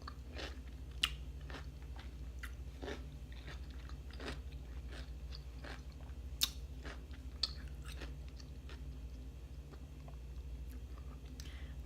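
A person chewing and crunching pickles close to the microphone: irregular crunches and mouth clicks, with a few sharper bites standing out.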